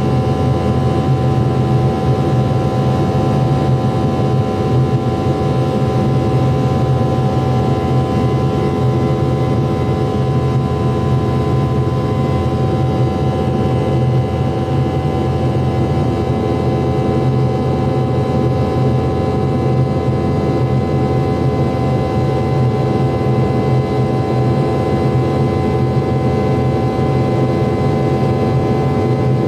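MD-88 airliner's rear-mounted Pratt & Whitney JT8D engines running steadily in flight, heard inside the cabin as a loud low hum with several steady whining tones above it.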